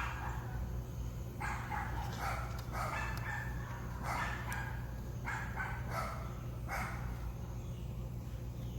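A dog barking, about six short barks at irregular intervals, over a steady low hum.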